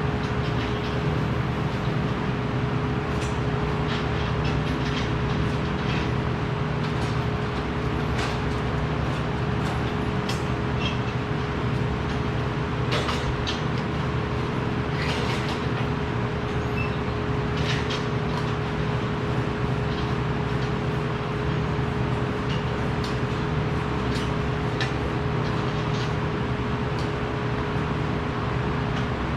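Steady machinery drone in a workshop, with a constant hum tone and scattered light clicks and taps.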